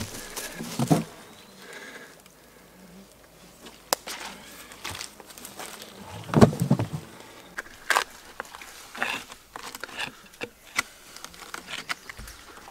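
Bark peeling and log handling on wet forest ground: scattered cracks, knocks and crackling, with one heavy thump about six and a half seconds in. Insects buzz around the microphone.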